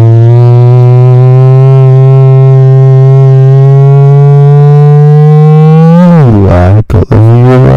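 A man's voice held as one long, loud, low note straight into a microphone with his mouth pressed against it, its pitch creeping slowly upward for about six seconds. Near the end it wavers and breaks into choppy sounds.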